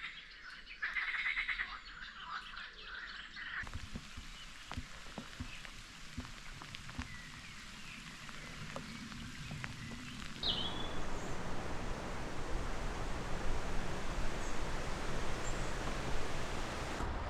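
Outdoor nature recordings cut one after another: a rapid pulsed animal call at first, then scattered clicks over a faint hiss, then a louder, steady rushing noise from about ten seconds in.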